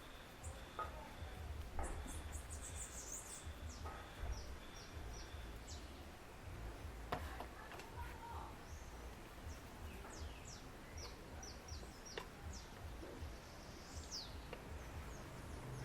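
Small birds chirping in short, high, quick notes that come in bunches, over a steady low rumble, with a few faint clicks.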